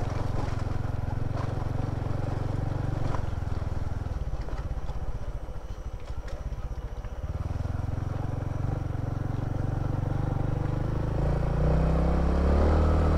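Three-wheeled motorcycle's engine running under load on a muddy track. It eases off about halfway through, then revs up louder near the end.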